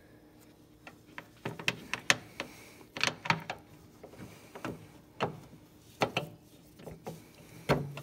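A dozen or so irregular light clicks and taps of hard plastic: a turn-signal bulb socket being worked toward its hole in the headlight housing, knocking against the housing and inner fender liner in a tight space.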